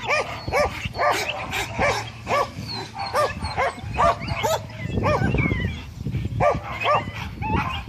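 A dog barking in a fast, steady string, about two to three barks a second, with a pause of about a second and a half past the middle before the barking picks up again.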